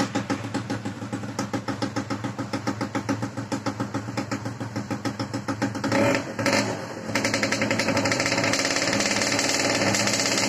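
Suzuki Tornado 110 cc single-cylinder two-stroke engine running, first at a low idle with a regular pulsing beat. About six seconds in it surges briefly, and from about seven seconds it runs louder and steadier at a higher speed.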